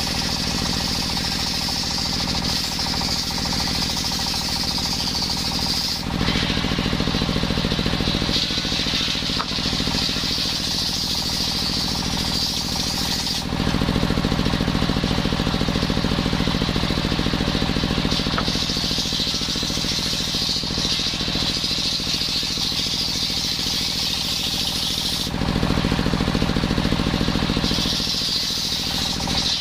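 Circular saw machine running continuously, with a steady low hum and a high hiss from the blade cutting coconut wood. The hiss is strongest for the first several seconds and again near the end, and eases in between.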